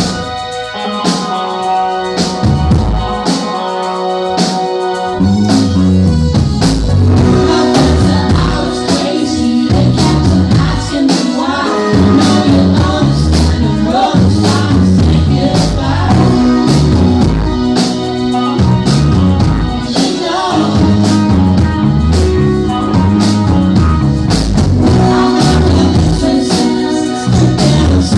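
Indie pop band playing a song live, with drums and singing over the band. The first few seconds are sparser, and the full band comes in about five seconds in.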